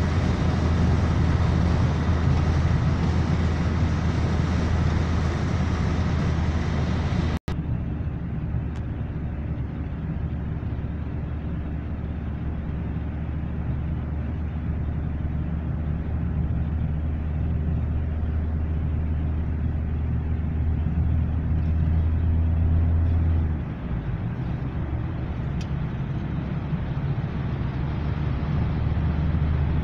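Car engine and tyre noise heard from inside the cabin while driving, a steady low drone. About seven seconds in the sound drops out for an instant and comes back duller.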